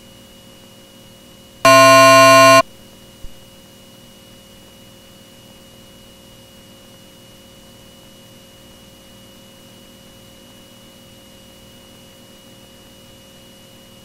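A loud electronic buzzer tone, steady in pitch, sounding once for about a second, over the faint steady electrical hum of an aircraft intercom feed.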